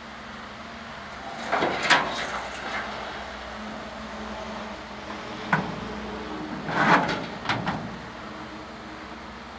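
Excavator engine running steadily while its tilting vibro hammer swings a long pile held in its clamp up to vertical, with no hammer vibration yet. Several sharp metallic clunks and creaks from the clamp, pile and boom break in about two seconds in, near the middle and twice around seven seconds.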